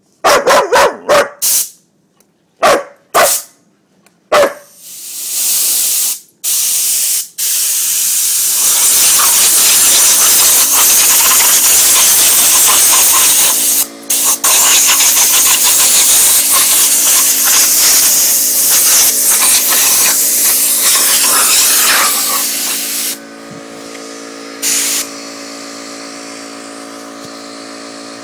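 Compressed air blowing from an air compressor's hose: a few short blasts, then a long loud hiss with a dog barking at it. Near the end the compressor motor hums steadily under two more short bursts of air.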